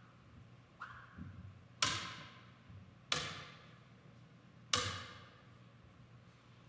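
Three sharp percussive strikes, about a second and a half apart, each ringing out and dying away over about a second.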